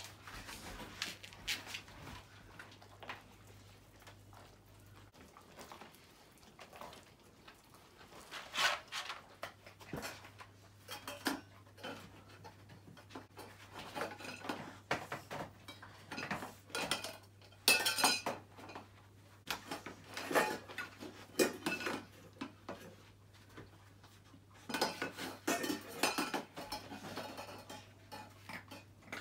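Metal tins and steel bowls clattering and clinking in a plastic tray, a dog's noise box, as a dog roots through them. The clatter comes in irregular bursts, loudest around the middle and again near the end.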